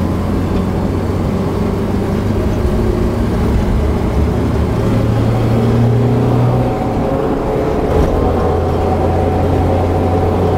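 A car engine droning steadily, heard from inside the cabin while driving. Its pitch rises for a second or so about five seconds in, then drops back. There is a short click about eight seconds in.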